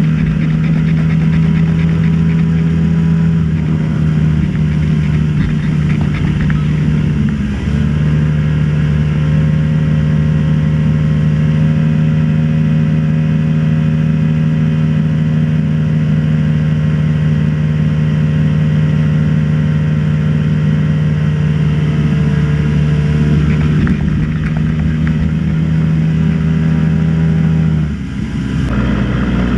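Motorboat engine running steadily under load. Its note dips briefly and steps up slightly about seven seconds in, and dips again just before the end.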